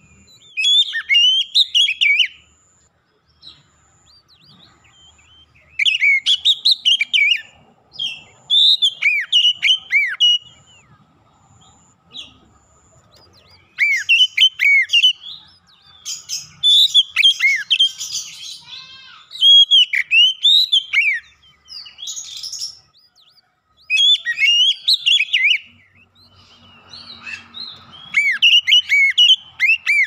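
Oriental magpie-robin singing: about nine phrases of clear, quickly varied whistled notes, each a second or two long, with short pauses between them.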